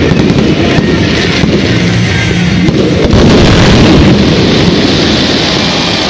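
Fireworks going off in a dense, continuous barrage of overlapping booms, loudest about three to four seconds in, typical of a show's finale.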